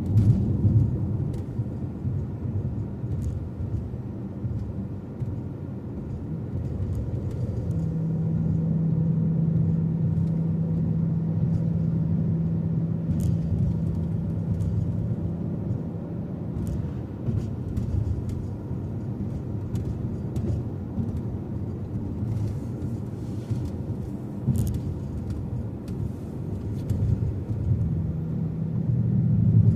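A car being driven, its engine and road noise a steady low rumble. A steady droning hum comes in about eight seconds in, drops out about halfway through, and returns near the end.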